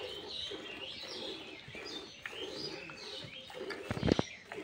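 Small birds chirping and a dove cooing over and over, with a short cluster of loud knocks about four seconds in.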